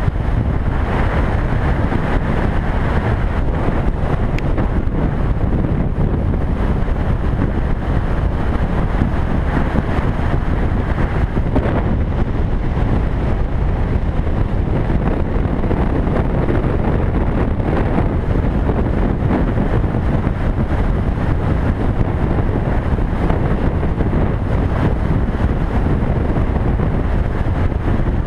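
Suzuki Boulevard cruiser motorcycle running at steady highway speed, engine and tyre noise under heavy wind rushing over the microphone. The sound holds steady, with no rise or fall in revs.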